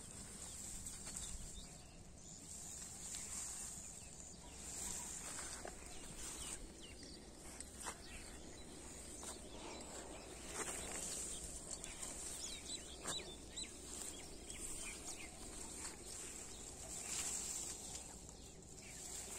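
Outdoor field ambience: a steady high-pitched insect drone that swells and fades, with scattered light clicks and rustles from footsteps and brushing through chilli plants, and a few faint bird chirps.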